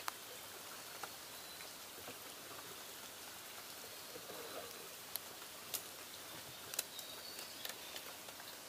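Light rain falling on a river: a faint, steady hiss with scattered small ticks of drops.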